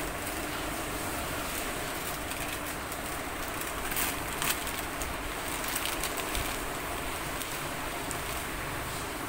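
Thin clear plastic bag rustling and crinkling as it is handled and shaken, with a few sharper crackles near the middle, over a steady background hiss.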